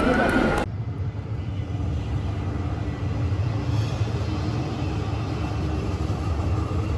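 Background music cuts off less than a second in, leaving a steady low rumble of background noise.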